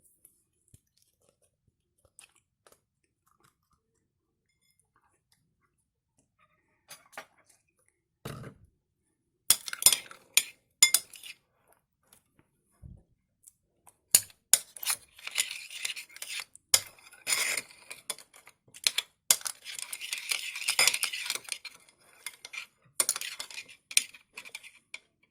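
A utensil clinking, tapping and scraping against a bowl while slime ingredients are mixed. Mostly quiet for the first several seconds, then the clatter starts and grows busier and denser in the second half.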